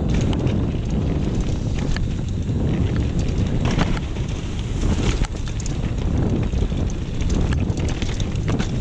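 Wind buffeting an action camera's microphone on a mountain bike riding fast down a dirt trail, with the tyres and bike rumbling and rattling over the ground; a couple of sharper knocks come around the middle.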